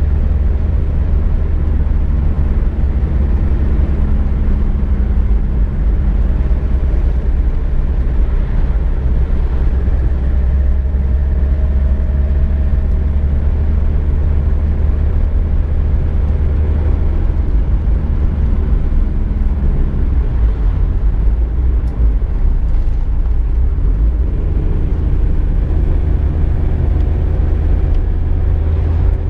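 Car being driven: a steady low engine and road rumble, with the engine note changing about two-thirds of the way through and climbing slightly near the end.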